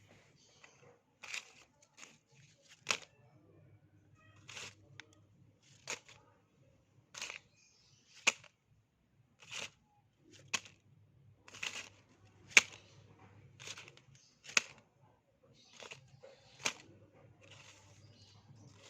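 A run of objects dropping and hitting a surface, one short impact roughly every second: some sharp clacks and some brief rustling knocks, the loudest about a third and two-thirds of the way in.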